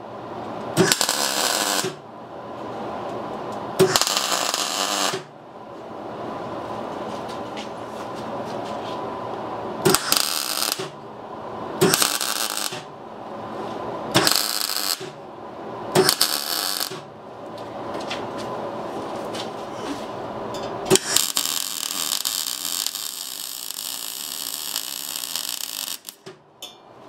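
MIG welder striking arcs on steel angle and tube: six short crackling tack welds of about a second each, a few seconds apart, then a longer continuous weld of about five seconds near the end. A steady hum runs between the welds.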